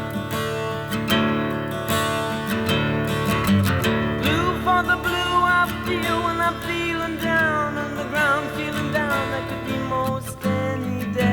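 Rock song recording: strummed acoustic guitar over bass and sustained chords. About four seconds in, a melody line comes in that slides and wavers in pitch.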